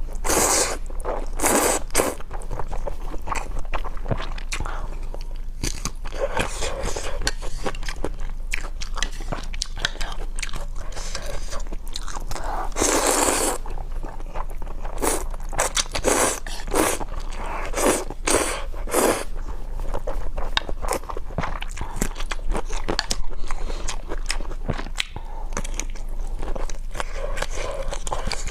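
A person chewing and biting food close to the microphone, with many short, sharp mouth clicks and a few longer, louder bites.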